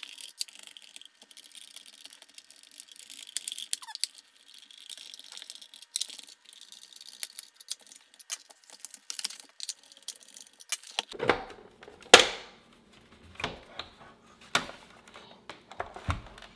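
A screwdriver working at a paper shredder and its plastic housing being handled during disassembly: light clicks and scratches, then louder plastic knocks and clatter from about eleven seconds in as the cover comes off.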